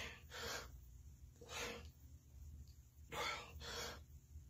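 A man breathing hard while doing push-ups: five short, sharp breaths, the last two in a quick pair.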